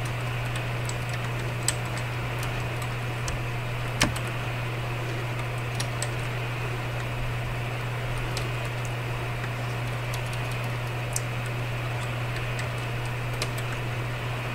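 A steady low hum under constant hiss, with about half a dozen scattered sharp clicks like keys being pressed; the loudest click comes about four seconds in.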